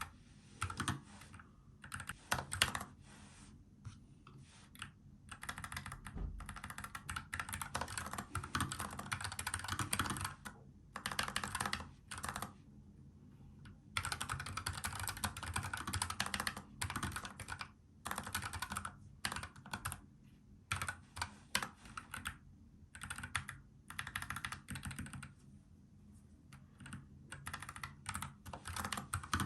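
Typing on a NuPhy Air75 low-profile mechanical keyboard with brown (tactile) switches. Rapid runs of keystrokes are broken by a few short pauses.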